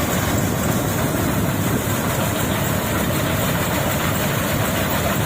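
Wheat harvesting machine's diesel engine and working parts running steadily, a dense, even mechanical noise.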